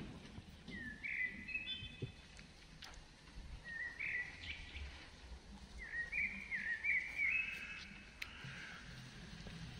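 A bird calling in three short runs of quick, stepped high notes, a couple of seconds apart, with a few faint clicks in between.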